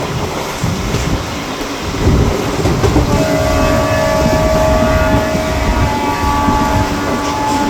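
DEMU train running along the track with a steady rumble. About three seconds in, a steady whine of several pitches joins, fading out near the end.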